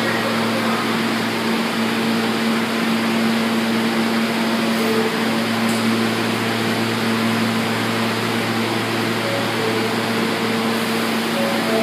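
A New York City subway F train standing at the platform with its doors open, its cars giving off a steady hum with a strong low tone over an even noise, typical of their ventilation and electrical equipment running.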